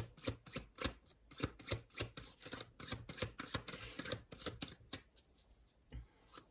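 A deck of tarot cards being shuffled by hand: a quick run of card flicks and riffles, several a second, thinning out to a few soft clicks about five seconds in.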